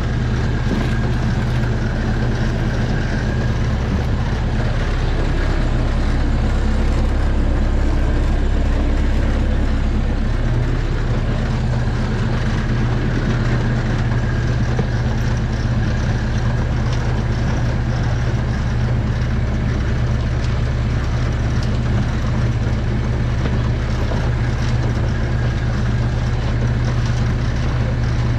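Farm machinery running steadily at constant speed, a continuous low mechanical drone with a slight change in its lowest tones about ten seconds in.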